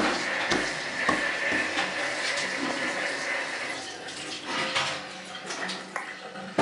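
Running water, steady for the first few seconds and then fading, with a few light knocks over it.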